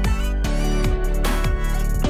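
Background music with a steady beat: low kick-drum hits about twice a second under held chords.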